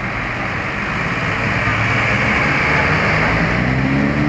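Bus passing close by: diesel engine and road noise swell, with the engine's pitch rising in the last second as it speeds up.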